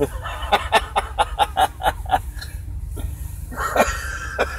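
A man laughing in a quick run of short bursts, followed by a longer, drawn-out breathy sound near the end.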